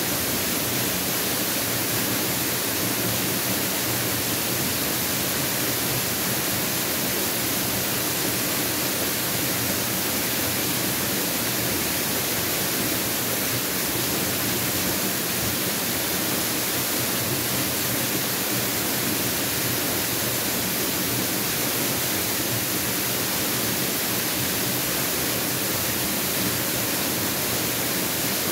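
Mountain waterfall: a steady, unbroken rush of falling water, an even hiss with no breaks or changes.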